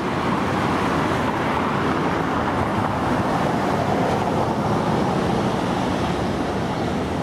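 Steady wash of street traffic noise, with no single vehicle standing out.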